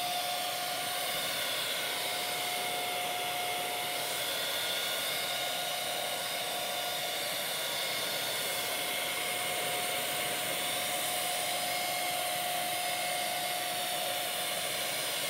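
HomeRight Finish Max handheld electric HVLP paint sprayer running steadily while spraying paint. Its turbine motor gives a steady whine over a continuous rush of air and atomised paint.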